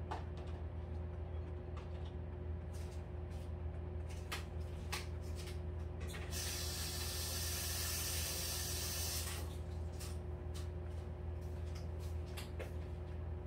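A steady hiss lasting about three seconds, starting about six seconds in, over a steady low hum with scattered light ticks.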